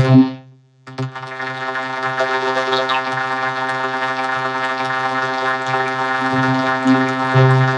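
Vocoder-processed audio from the Image-Line Vocodex effect: a steady buzzing drone held on one pitch with many overtones. A short burst comes right at the start, then a brief gap before the drone sets in about a second in.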